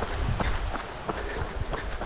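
Running footsteps on a dirt forest trail, about three strides a second, with a low rumble underneath.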